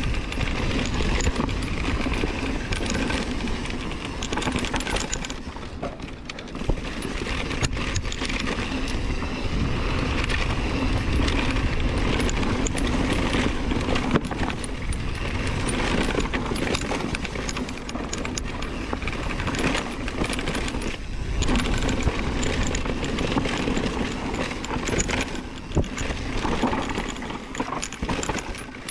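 Mountain bike rolling over a dirt and rock trail: a steady rumble from the tyres with frequent rattling and clicking from the bike.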